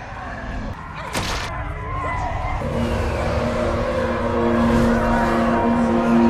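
Horror-film sound design: a noisy rumble with a sharp screech about a second in, then a steady low droning chord with wavering high tones over it.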